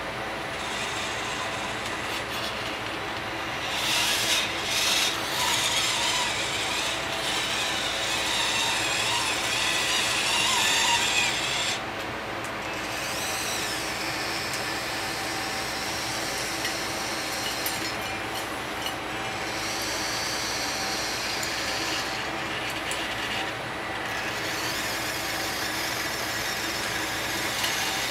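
Electric drive motor and gears of a radio-controlled metal Tonka dump truck whirring steadily as it drives over loose dirt. The sound is louder and harsher from about four seconds in until about twelve seconds, while the truck climbs onto the dirt pile.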